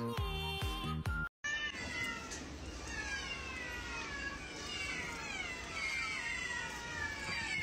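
Short burst of background music, then a sudden cut to a crowd of cats and kittens meowing at once, many overlapping falling meows.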